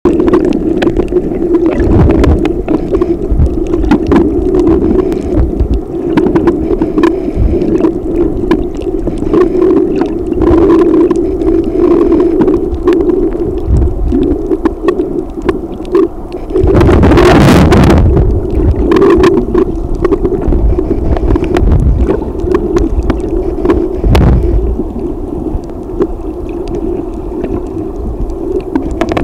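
Underwater sound picked up by a submerged camera: a steady low hum with scattered sharp clicks, and a loud rushing burst about 17 seconds in.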